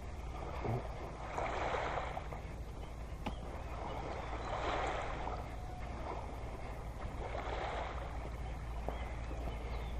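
Small waves lapping gently on a sandy beach, a soft wash about every three seconds over a low steady rumble.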